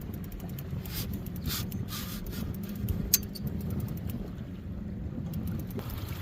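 Boat motor running steadily at trolling speed, a low drone with wind and water noise around it. Scattered light clicks and knocks of gear being handled, with one sharper click about three seconds in.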